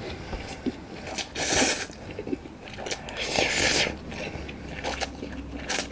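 A person slurping and chewing spicy Shin Ramyun stir-fried instant cup noodles. There are two long hissing slurps, about a second and a half in and again around the middle, with wet chewing and smacking between them.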